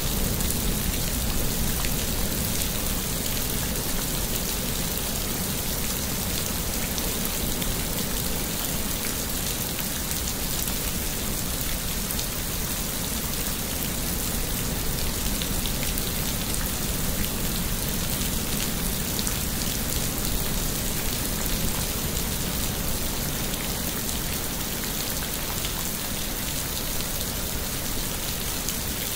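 Heavy rain falling steadily on jungle tree leaves: a dense, even hiss with many separate drops ticking on the foliage.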